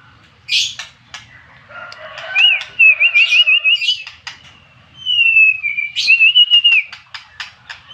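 White-rumped shama (murai batu) singing: clear whistled phrases with fast warbling trills, one slurring downward, broken up by quick sharp clicking and chattering notes.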